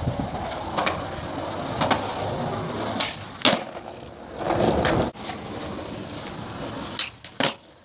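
Skateboard wheels rolling on concrete, broken by several sharp wooden clacks of the board popping and landing.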